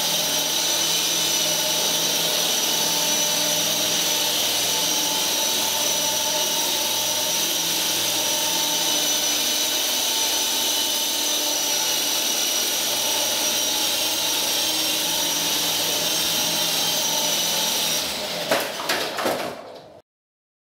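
Toy RC helicopter's small electric motors and rotor blades whining steadily with a high, even pitch as it hovers. About eighteen seconds in, the motors spin down and a few knocks follow as it comes down onto the floor, then the sound cuts off.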